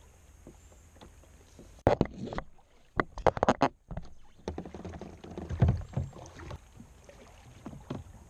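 Knocks and clatter of a kayak paddle and gear being handled against plastic kayak hulls: one knock about two seconds in, a quick run of sharp knocks a second later, and another loud knock a little before six seconds.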